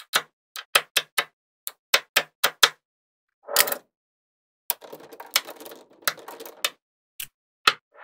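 Small neodymium magnet balls clicking sharply as rings of them snap together, about nine quick clicks, then a short rattle and a longer stretch of busy clattering as the rings are pressed into a bar, with two last clicks near the end.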